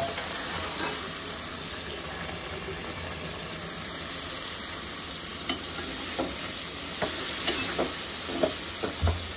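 Fish curry masala sizzling steadily in an aluminium pot, with a metal spatula clicking and scraping against the pot in the second half as it is stirred.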